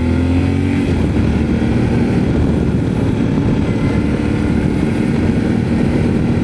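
Yamaha Ténéré 700's parallel-twin engine running on the move, largely buried under loud wind noise on the microphone. The engine's tone sags a little in the first second, then the wind rumble dominates.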